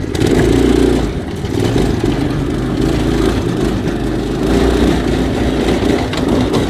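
Murray go-kart's small engine running hard under throttle, opening up sharply at the start, then holding high revs with small rises and dips as the kart is driven.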